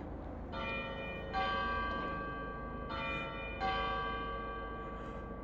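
Church bells ringing: two bells of different pitch struck in turn, four strokes in two pairs, each stroke ringing on and overlapping the next.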